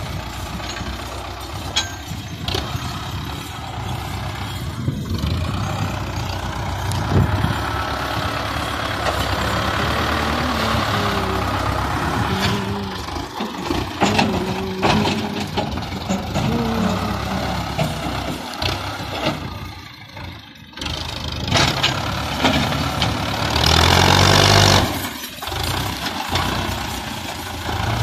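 Tractor loader's diesel engine working hard, its pitch rising and falling as the bucket digs dry soil and lifts it to the trolley. The engine strains under the shovel's load. Near the end there is a loud rushing noise lasting a second or so.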